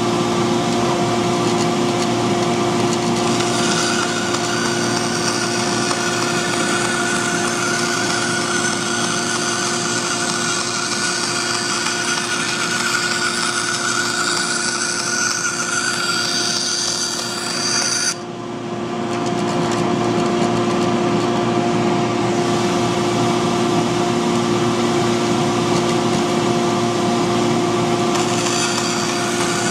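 Bandsaw running and cutting thin hardboard with paper patterns glued to it: a steady motor hum with a higher hiss from the cut. The hiss stops suddenly about two-thirds of the way through while the hum carries on, then builds back.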